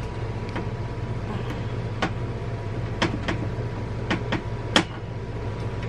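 Light clicks and knocks of a hand working a wire through a wooden cabinet, about six in all with the loudest near the end, over a steady low hum.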